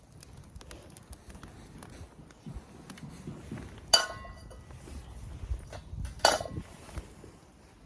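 Two sharp metallic clinks about two seconds apart, each ringing briefly, as metal camp gear is knocked together. Fainter handling knocks and a low rumble fill the rest.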